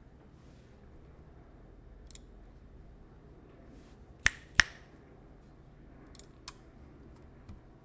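A few isolated keystrokes on a Leopold FC660C Topre keyboard with BKE Redux Light domes, Novatouch sliders and GMK keycaps. Two sharp, louder key clacks come close together about four seconds in, with fainter single key taps before and after.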